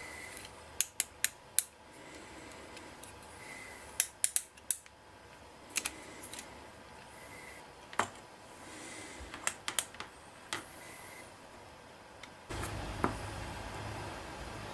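Small plastic model parts clicking and tapping as the legs of a 1/6 scale machine-gun tripod are swung on their pivots and set down on a cutting mat, in scattered groups of two to four sharp clicks. A steady low background noise comes in about two-thirds of the way through.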